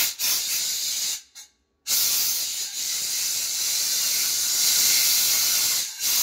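Compressed-air blow gun hissing as it blows metal chips and coolant off the mill table and vises, in bursts: it cuts off about a second in, starts again half a second later and runs on with a brief break near the end.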